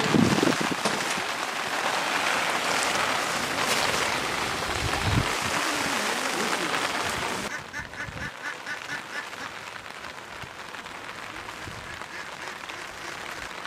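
Floodwater from an overflowing pond running fast over the ground, a loud steady rush with a few low thumps. About seven and a half seconds in it drops to a fainter steady patter of rain, with a quick run of short calls lasting about a second.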